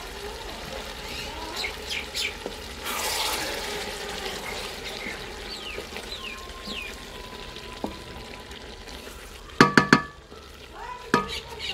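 Vegetables sizzling in a large aluminium pot as they are stirred with a wooden spatula after a splash of water, with birds chirping. About ten seconds in, a quick run of loud ringing clanks from the pot, and one more shortly after.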